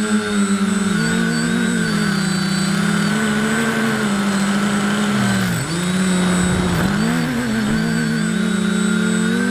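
Small drone's electric motors and propellers whining steadily, the pitch falling sharply for a moment about five and a half seconds in and then climbing back.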